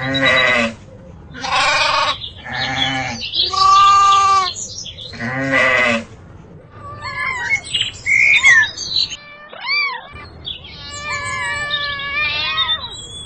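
A flock of sheep bleating, five loud calls over the first six seconds. After that a cat meows several times, more quietly, each call rising and falling in pitch.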